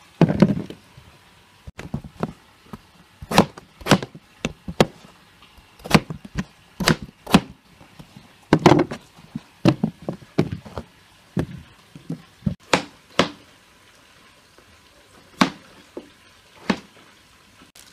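Large kitchen knife chopping peeled raw potatoes on a wooden cutting board: a series of sharp, irregular knocks as the blade strikes the board, sometimes in quick pairs, with a short pause near the end.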